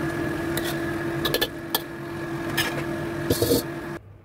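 A metal ladle clinks and scrapes several times against a steel wok while stirring, over a steady mechanical hum that cuts off abruptly near the end.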